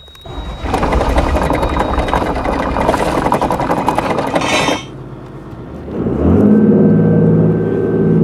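Cummins marine diesel engine on a cabin cruiser being started with the key: it cranks and catches with a loud clatter, then settles, and about six seconds in the engine note rises steadily as the throttle is pushed forward.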